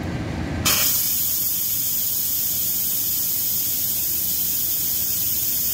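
Instant Pot electric pressure cooker doing a quick release: steam jets from the release valve with a loud, steady hiss that starts suddenly just under a second in, once the release button is pressed.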